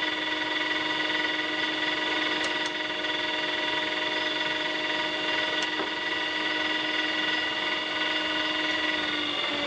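Electric motor driving a motorcycle permanent-magnet generator on a test bench, running steadily with a whine of several pitches. The pitch sags slightly near the end.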